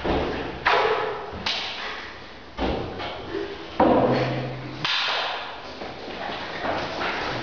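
A series of sudden thumps and knocks, roughly one a second, each dying away with a ringing tail.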